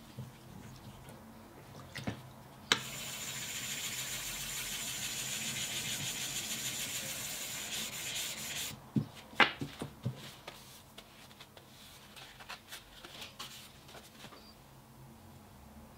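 A wet whetstone being scrubbed by hand with a small block: a steady rasping rub that lasts about six seconds and then stops. A few sharp knocks follow as things are set down.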